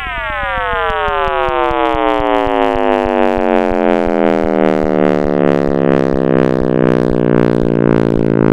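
Sonified NASA space data, shifted into the range of hearing: a cluster of many tones sliding steadily down in pitch and settling into a low chord, over quick regular clicks.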